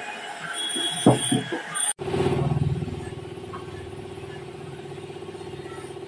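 A few sharp knocks with a high squeal, then after an abrupt cut a steady motor hum with a fine rapid pulse.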